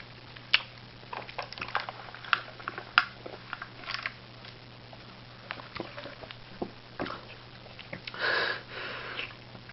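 A person chewing a hamburger: scattered wet mouth clicks and smacks of biting and chewing, with a louder breath of air about eight seconds in.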